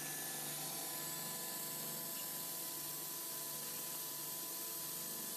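Thread-rolling machine running while forming a trapezoidal screw spindle between oiled rolling dies: a steady hiss with a faint, even hum underneath.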